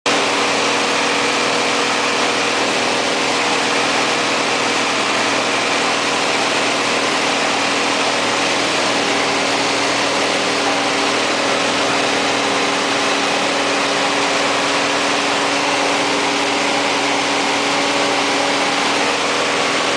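Light propeller plane's engine and propeller in flight, heard inside the cabin: a steady drone with a strong hiss over it that does not change.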